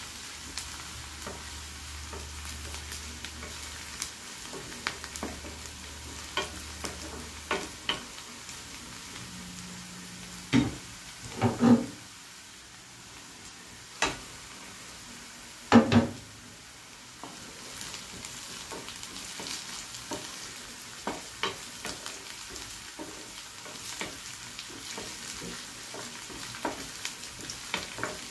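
Chopped onions sizzling in oil in a non-stick frying pan while a wooden spatula stirs and scrapes them, with small clicks throughout. A few louder knocks come about halfway through.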